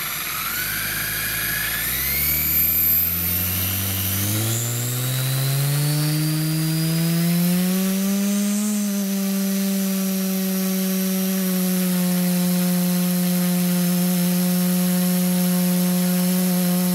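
Leopard LC250-30 4420kv brushless outrunner turning a 14x8 folding carbon propeller through a Reisenauer Micro 5:1 gearbox, spun up from standstill on a thrust stand. The propeller hum and a high motor and gear whine rise in pitch for about eight seconds, then hold steady under load.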